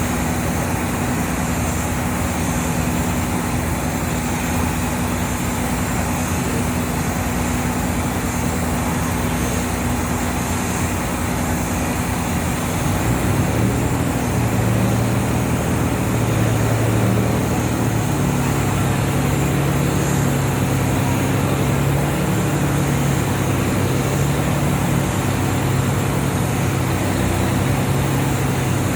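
Boat engine running hard in a steady drone while towing a larger vessel stuck in mud. About halfway through it gets louder and its hum drops lower, as the engine takes more load.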